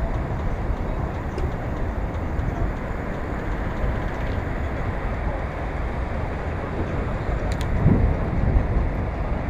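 Steady low rumble of wind and rolling noise from a moving bicycle, mixed with traffic on the adjoining highway. A brief louder bump near the end.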